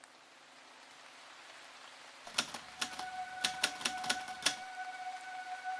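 A quick, irregular run of about ten sharp clicks over some two seconds, rising out of a faint hiss, with a steady high tone setting in about halfway through and holding.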